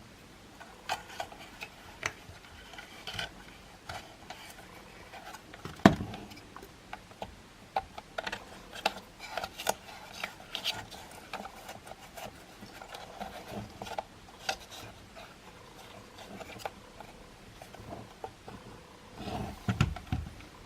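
Handling noise from working on a cordless stick vacuum cleaner: scattered clicks, taps and rubbing of plastic and small metal parts, with a sharper knock about six seconds in and a few heavier thuds near the end. No motor is running.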